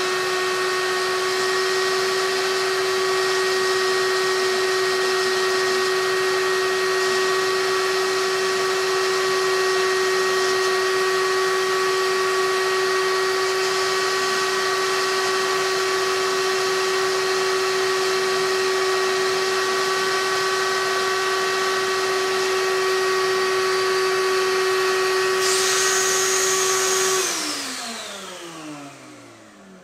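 Shop vac running and driving the air-turbine Dremel VRT1 vacuum-powered rotary tool while its ball engraver bit engraves steel: a steady whine with several steady higher tones over rushing air noise. Near the end a higher whine briefly joins, then the whole sound winds down, falling in pitch and fading as the vacuum is shut off.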